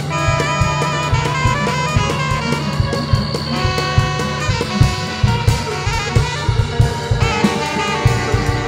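Live instrumental band music: an electric lap steel guitar holding sustained, slightly bending slide notes over busy drum kit playing and electric guitar.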